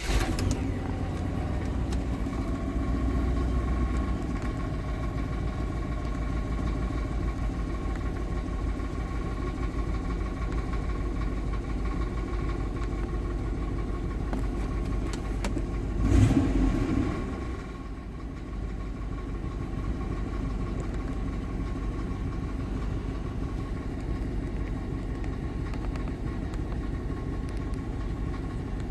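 A 1999 Chevrolet Suburban's 5.7-litre V8 starting and then idling steadily, heard from inside the cab. About sixteen seconds in there is a brief louder surge before it settles back to idle. The engine keeps running without stalling.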